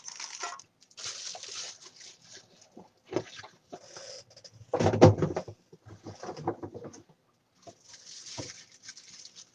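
Packaging rustling and crinkling as a wax warmer is unwrapped, with scattered clicks and one heavy thump about five seconds in as something is set down.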